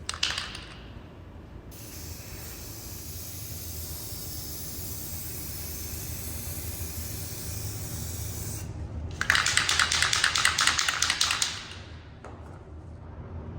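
Aerosol spray-paint can spraying in one long steady hiss for about seven seconds. The can is then shaken, its mixing ball rattling rapidly for about two seconds.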